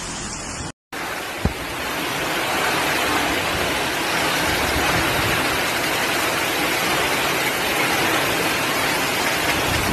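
Heavy hurricane rain and wind lashing trees, a loud steady hiss that swells a little after about two seconds. A brief dropout comes just under a second in, and a single sharp knock follows soon after.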